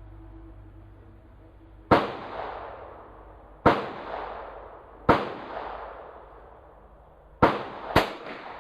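Five shots from a .22LR Ruger Charger pistol, fired one at a time, each followed by a short echo that dies away. The last two shots come close together.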